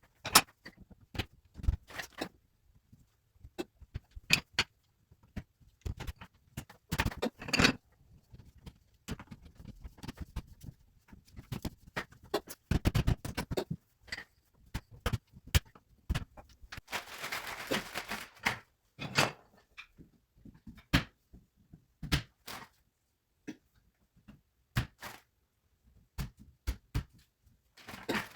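Handling of wooden plant-stand parts and small hardware during hand assembly: irregular knocks, clicks and clatters, with a stretch of scraping or rustling about two-thirds of the way through.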